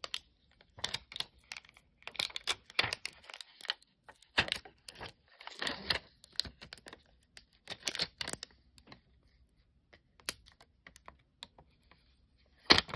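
Clear vinyl transfer tape crinkling and crackling as it is handled on an acrylic night-light panel and peeled off it, in irregular clicks and short rustles. There is a louder crackle near the end.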